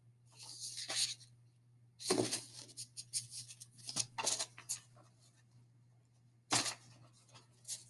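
Faint rustling and clicking handling noises close to the microphone, coming in several short clusters, over a steady low hum.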